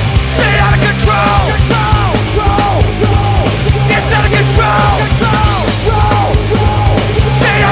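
Loud punk rock music with shouted vocals over a steady bass and drums.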